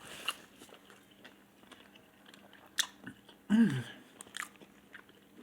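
A person chewing a mouthful of fried chicken sandwich, with small wet mouth clicks and one sharper click near the middle. A short hum from the voice, falling in pitch, comes a little past halfway.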